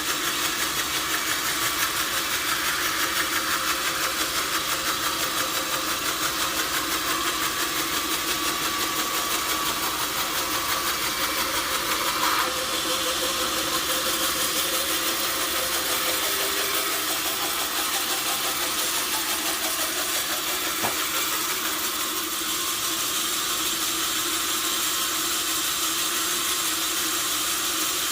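Sawmill machinery running steadily with a dense, hissing mechanical noise, with a sharp knock about twelve seconds in and a smaller one later.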